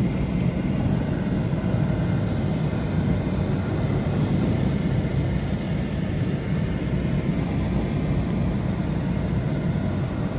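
Steady low rumble of a car driving slowly along a flooded road, heard from inside the cabin.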